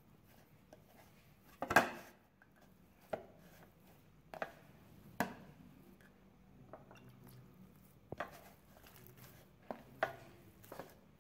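Naan dough being mixed and kneaded by hand in a ceramic plate: sharp knocks of hand and dough against the plate at irregular intervals, the loudest about two seconds in.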